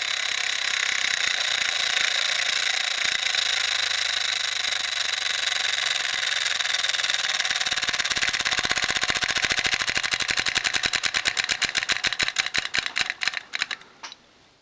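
S.E.L. 1520 Minor toy steam engine running fast, its exhaust beats so quick they blur into a steady chuff. From about halfway the beats come apart and slow, getting fainter as the engine runs down to a stop near the end.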